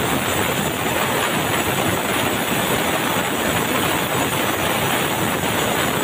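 Sawmill saw ripping a squared red meranti timber into boards, a loud, steady machine-and-cutting noise with no let-up.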